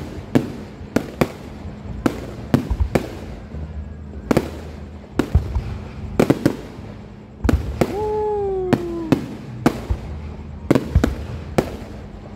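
Aerial fireworks display: shells bursting in an irregular, rapid string of sharp bangs, two or three a second. About eight seconds in, a falling whistle-like tone sounds for about a second among the bangs.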